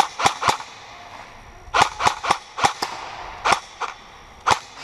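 Airsoft guns firing semi-auto shots: about a dozen sharp snaps in loose groups. There are three at the start, a quick run of five around two seconds in, then a few single shots toward the end.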